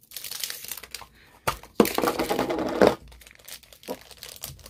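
Toy packaging crinkling and tearing as it is opened by hand, with a sharp click about one and a half seconds in and the loudest rustling just after it.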